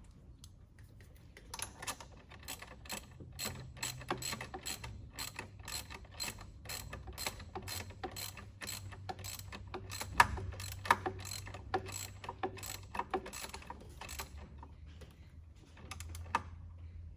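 Socket ratchet clicking in a long run of steady strokes as a 13 mm fastener on the brake pedal is done up, with a few louder metal knocks about two-thirds of the way through. The clicking starts shortly after the beginning and stops a few seconds before the end.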